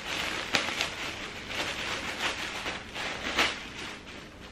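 Rustling of packaging and clothing being handled: several short swishes that fade toward the end.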